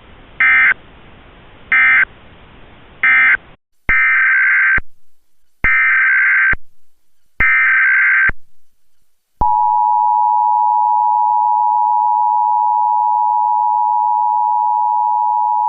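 Emergency Alert System tones. First come three short bursts of warbling digital data, the end-of-message codes; then three longer data bursts, the SAME header, each just under a second. About nine and a half seconds in, the steady two-tone EAS attention signal begins and holds.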